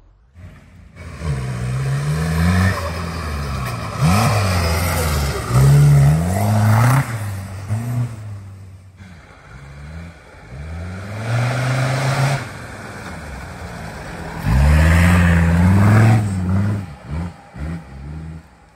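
Off-road 4x4 engine revving up and down repeatedly under load. Its pitch rises and falls several times, eases off briefly about halfway, surges again, and ends in a few short throttle blips.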